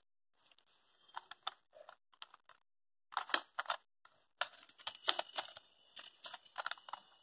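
A sheet of paper rustling and crackling as it is lifted, turned and folded by hand: clusters of quick crackles with short pauses between them.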